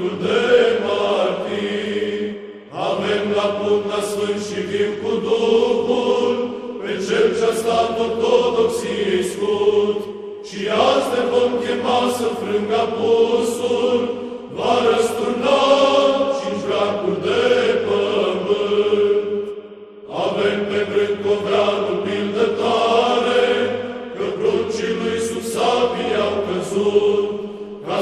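Chanted singing as background music over a held low drone note, in phrases of a few seconds with brief breaks between them.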